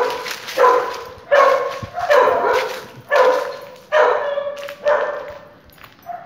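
A dog barking over and over, about seven barks a little under a second apart, stopping near the end.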